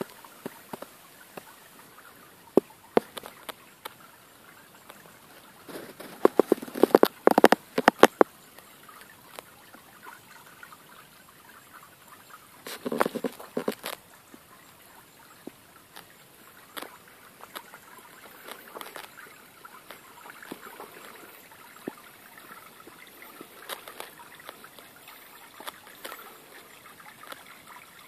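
Small garden-pond fountain trickling and splashing steadily into the water, with scattered clicks and two short clusters of louder clicks and rustles about a quarter of the way in and near the middle.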